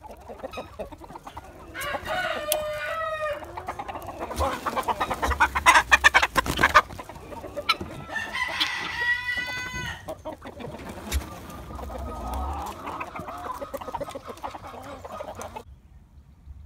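Chickens clucking and a rooster crowing twice, about two seconds in and again around eight and a half seconds in. Between the crows comes a loud, rapid rattling run of sounds. The farmyard sound cuts off suddenly shortly before the end.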